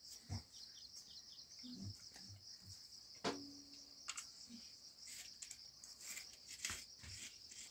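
Crickets chirring steadily in a high, even band, with a few scattered knocks and clicks, one about three seconds in followed by a short low hum.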